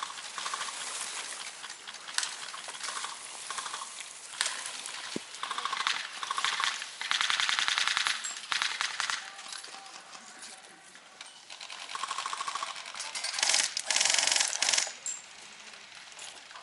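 Airsoft guns firing full-auto bursts: rapid trains of clicking shots, several bursts in a row, the loudest a couple of seconds long about seven seconds in and again near the end.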